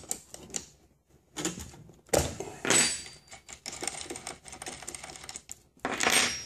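A wrench working a nut and bolt loose: a string of metal clicks and clinks, with louder clanks about two seconds in and near the end.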